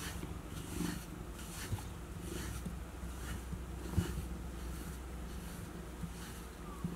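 A pet brush swept through a cat's fur in steady strokes, a soft brushing hiss about once a second, over the low, steady purring of the relaxed cat. A short soft knock about four seconds in.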